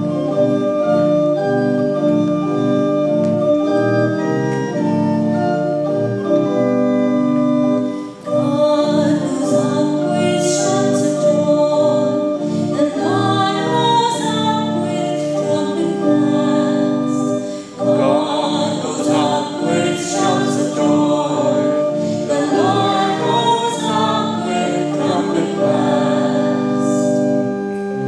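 Church organ playing held chords, joined about eight seconds in by singing over the organ accompaniment: the sung responsorial psalm following the first reading at Mass.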